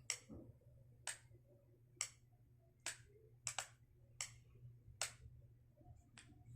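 A light's switch clicking on and off to key Morse code Q (dash dash dot dash). The clicks fall about a second apart for each dash, with a quick pair close together for the dot. A fainter click comes near the end.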